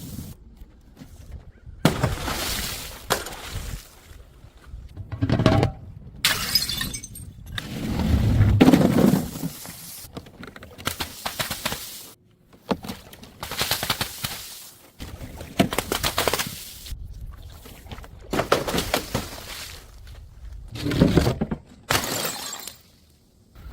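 Glass bottles and jars smashing in a run of short clips, one break after another with abrupt cuts between them; some impacts carry a heavy low thud.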